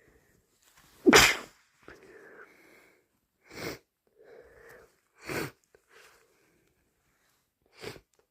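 A person sneezing four times, the first sneeze the loudest, with softer breathy in-breaths between the sneezes.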